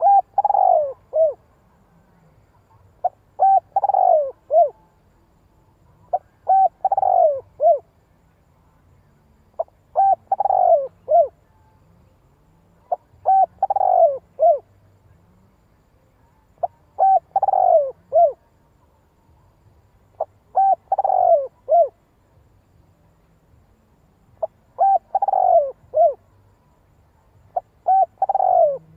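Spotted dove cooing, one call phrase about every three and a half seconds, nine times. Each phrase is a couple of short notes, a longer falling coo, then a short closing note.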